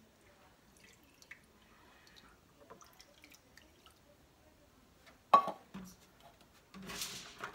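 Kitchen handling sounds. Faint taps, then one sharp knock about five seconds in, then a brief splashing rush near the end as milk is poured into a bowl of cream of mushroom soup.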